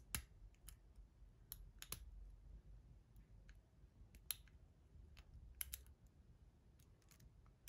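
Faint, irregular metallic clicks of a hook pick probing and lifting the pins of a DESEO 6-pin euro cylinder lock held under a tension wrench.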